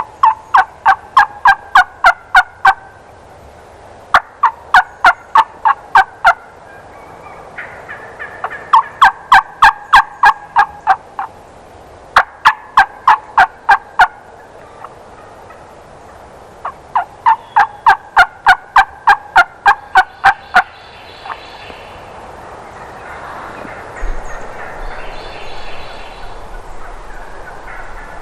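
Turkey yelping: five runs of loud, evenly spaced yelps, about four to five a second, each run lasting two to three seconds. In the last several seconds there is a softer, rougher sound.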